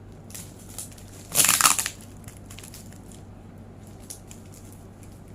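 Packing tape being pulled and torn off a cardboard shipping box: one loud rip about a second and a half in, with smaller crackles before and after it.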